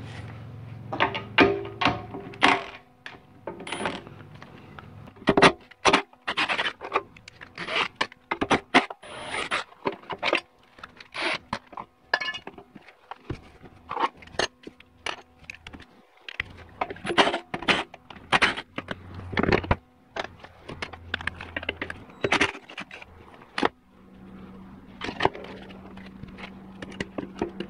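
Metal hand tools and transmission parts clinking, tapping and scraping in quick, irregular knocks as the output shaft is worked off a 4L60e automatic transmission. A low steady hum comes in near the end.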